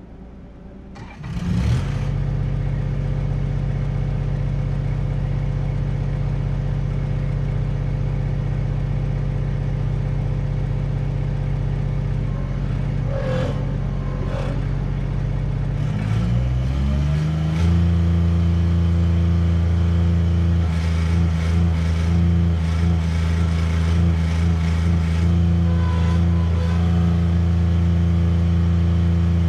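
Bobcat 553 skid steer's diesel engine starting up about a second and a half in and idling steadily, then throttled up past the halfway point and held at a steady higher speed.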